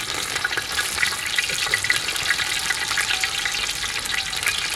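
Food frying in hot oil in a pan, a steady sizzle with many small crackles and pops.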